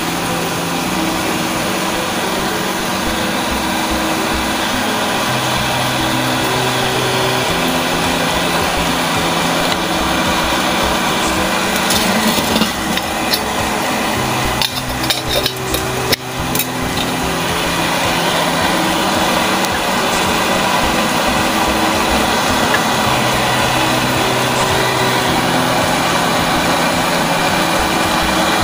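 Coil-jet alcohol stove burning with a steady hiss. A run of light metallic clanks in the middle as a metal windscreen and pot are set around the burner.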